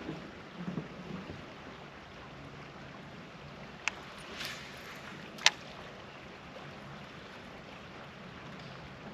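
Low, steady noise of slow-moving river water around a kayak. A sharp click comes about four seconds in, and a louder knock follows about a second and a half later as gear is handled in the kayak, the paddle being set down and the fishing rod picked up.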